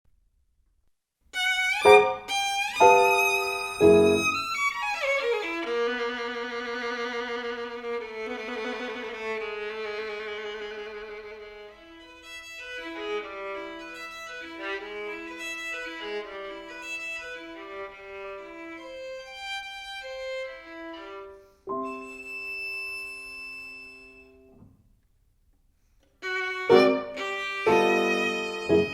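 Instrumental violin music, beginning after about a second of silence with several strong, forceful notes, then long held notes with vibrato and a passage of shorter notes. A sustained chord near the end is followed by a short pause before loud, emphatic chords return.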